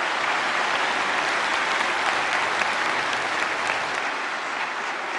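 Large audience applauding: steady, dense clapping that eases off a little near the end.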